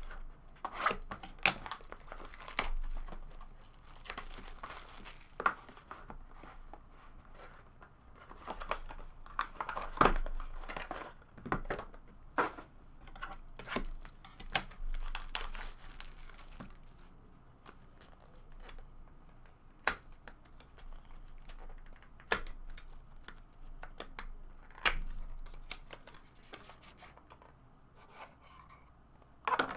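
Wrapping being torn and crinkled off a Panini Anthology Hockey trading-card box, with rustling and sharp clicks of the cardboard being handled; after the first half there are mostly just a few isolated sharp taps as the box is opened and the thick cards come out.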